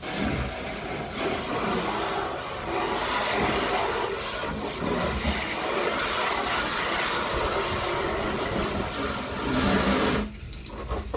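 Garden hose spray nozzle jetting water inside a plastic drum, a steady rushing spray that rinses out soap suds, cutting off suddenly about ten seconds in.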